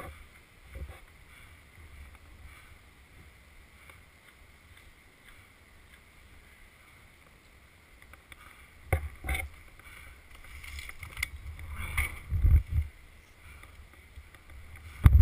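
Low wind rumble on the microphone. From about nine seconds in there are scattered thumps and rustles, irregular and growing louder toward the end.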